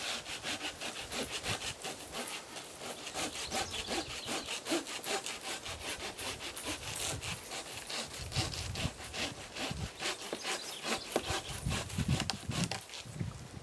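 Fiskars folding hand saw cutting through a wooden limb in rapid, even back-and-forth strokes, the teeth rasping through the wood.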